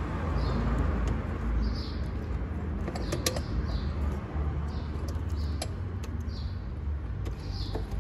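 Hand working on a car headlight's plastic retaining clip and housing: rubbing and handling noise with scattered sharp plastic clicks and creaks. Short high chirps recur about once a second throughout.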